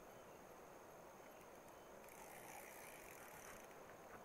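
Near silence: faint hiss with a thin, steady high-pitched insect trill, and a soft swell of hiss about two seconds in that lasts a second and a half.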